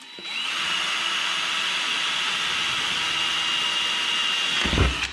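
Cordless drill running steadily as it bores a pilot hole through the metal door of an old insulated ice box, with a constant high whine over the drilling noise. A low thump comes near the end, just before the drill stops.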